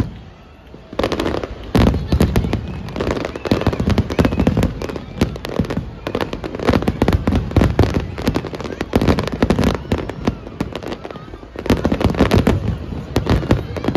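Fireworks display: a dense, rapid string of bangs and crackling. After a brief lull in the first second, it goes on almost without a break.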